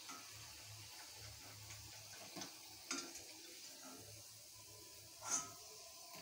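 Faint scrapes and light taps of a slotted steel spatula in a kadhai as crisp fried potato pieces are lifted out, over a low hiss. There is a louder brief scrape about five seconds in.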